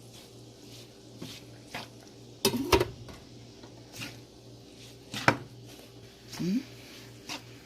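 Cooking utensil knocking and scraping against a pan a few times while vegetables are stirred in, the loudest clatter about two and a half seconds in, over a steady low hum.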